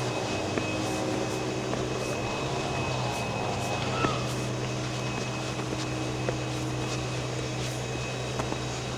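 A steady low mechanical hum with a thin, constant high whine above it, and a few faint clicks.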